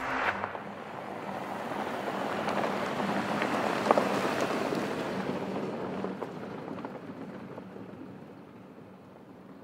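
Porsche Cayenne SUV driving past on a loose dirt track: tyre noise on gravel with its engine underneath, growing louder to a peak about four seconds in, then fading as it drives away.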